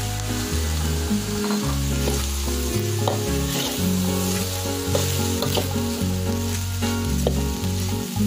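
Rice, sausage and vegetables sizzling in a stainless steel wok while a metal spatula stirs and tosses them, with scattered sharp scrapes and taps of the spatula against the pan.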